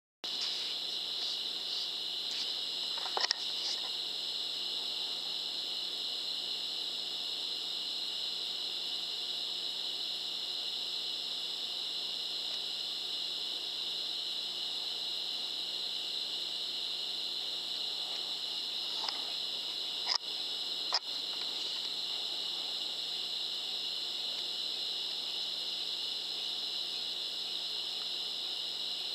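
Steady, high-pitched chorus of night insects in a field, with a few light clicks about three seconds in and twice around twenty seconds.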